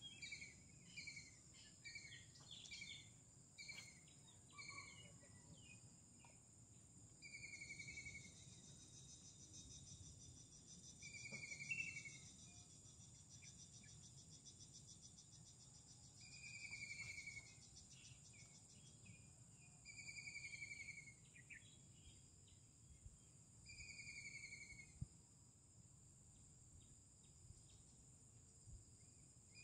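Faint open-country ambience: insects droning steadily and high, with a bird giving quick short chirps for the first few seconds, then a call about a second long repeated roughly every four seconds.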